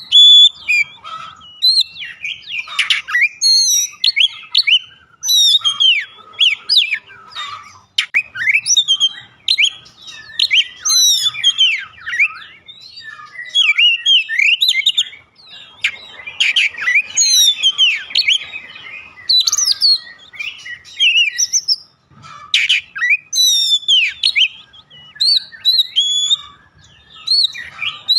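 Oriental magpie-robin (kacer) singing a rich, varied song of rapid whistles, chirps and trills, delivered in phrases a second or two long with short pauses between them.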